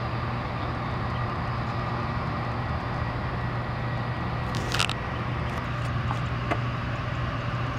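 Steady road-traffic rumble with a constant low hum, broken by a brief sharp sound about five seconds in and a sharp click at the very end.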